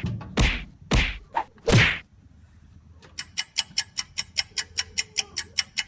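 Added cartoon-style sound effects: four or five quick swish-and-whack hits in the first two seconds, then, after a short pause, a rapid, even ticking about five times a second.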